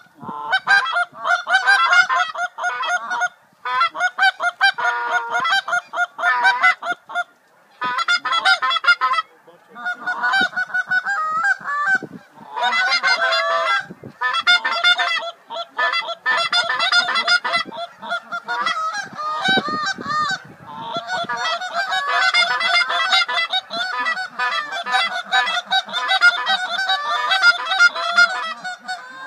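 A large flock of geese honking overhead, many birds calling over one another in long stretches broken by brief pauses.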